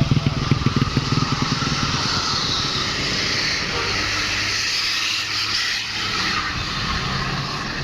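A road vehicle's engine running close by: a quick low pulsing for the first couple of seconds, settling into a steadier low hum, over a constant traffic hiss.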